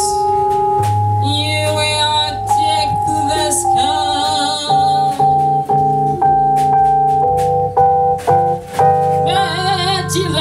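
A woman singing live into a microphone with vibrato, backed by held keyboard chords and drum hits.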